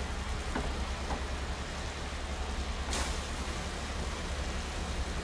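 Pressure washer spray hissing steadily against soaped window glass over a constant low hum, with a short sharp burst about three seconds in.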